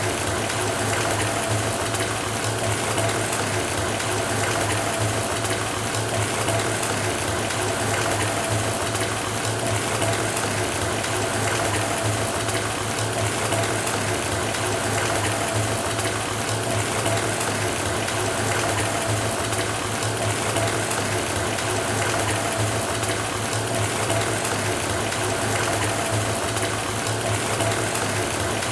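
Bathtub filling from the faucet: water running steadily into the tub, with a low steady hum under the splashing.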